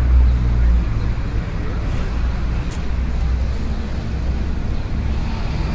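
City street traffic: a steady low rumble of passing vehicle engines and tyres, heaviest in the first second and again near the end, with faint distant voices and a couple of light clicks.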